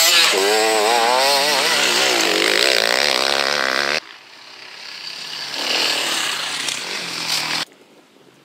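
Enduro dirt bike engine revving hard as the bike passes close, its pitch rising and falling with the throttle. About four seconds in it drops sharply and a fainter bike is heard approaching and revving, then that sound cuts off abruptly near the end.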